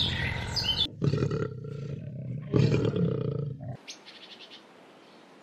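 A large animal roaring twice, two deep calls about a second and a half apart, after a few bird chirps; the sound then cuts off suddenly to quiet.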